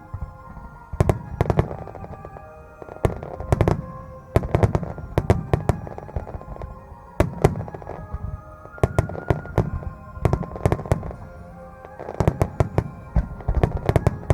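Aerial fireworks shells bursting in clusters of sharp bangs, a few volleys every second or two, over music with sustained tones.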